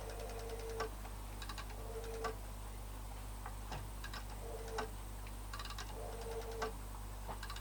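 Faint phone-call tones: short steady beeps repeating at uneven intervals, each ending in a light click, with scattered ticking, as the call rings unanswered.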